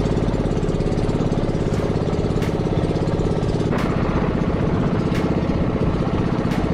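Small gasoline engine of a motorized outrigger boat running steadily at trolling speed, with a few sharp clicks about a second and a half apart.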